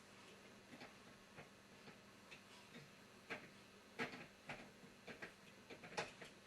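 Near silence broken by light clicks and taps at irregular intervals, a few of them a little louder.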